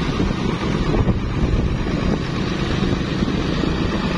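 Wind buffeting the microphone of a moving motorcycle, over the steady running of motorcycle engines.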